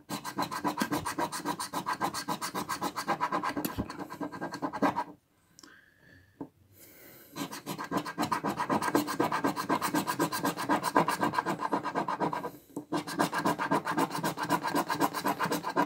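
A large metal coin scraping the coating off a scratch-off lottery ticket in rapid back-and-forth strokes. The scratching stops for about two seconds a third of the way in, and breaks off briefly near the end.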